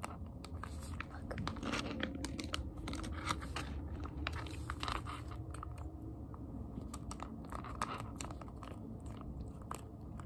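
Plastic candy wrappers handled close to the microphone: irregular crinkling with light taps and scratches of fingers on the packets.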